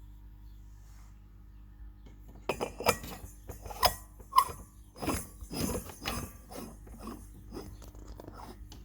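Glass heat-lamp bulbs clinking and knocking against the lamp unit's metal fittings as they are handled and fitted, a cluster of sharp clinks in the middle few seconds with one brief ring.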